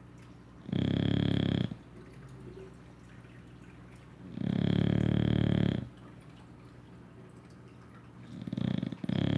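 English Bulldog snoring: three loud snores, each about a second long, roughly every four seconds, with quiet breathing between them. The third snore starts near the end with a brief hitch before it carries on.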